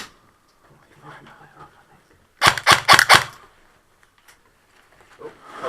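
Airsoft rifle firing a rapid burst of about seven shots in under a second, with faint voices before it.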